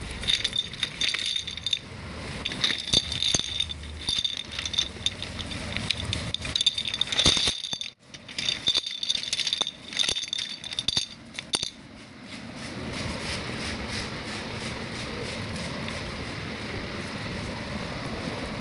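Hollow plastic domino tiles from a toy domino train set clattering and clicking against each other as they are handled, with a brief pause about eight seconds in. From about twelve seconds on the clatter stops and only a steady hiss remains.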